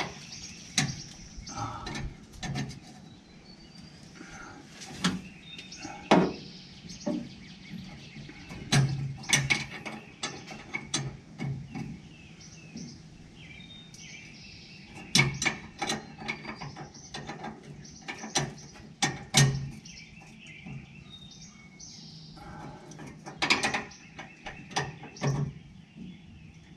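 Steel wrenches clicking and clinking against a fuel line fitting as it is tightened with a line wrench and a backup open-end wrench. The sharp metallic clicks come in irregular clusters as the wrenches are repositioned and turned.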